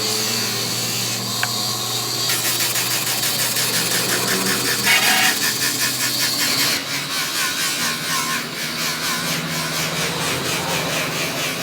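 Abrasive rubbing on a plastic headlight lens: hand-sanding in quick back-and-forth strokes that repeat evenly through the second half.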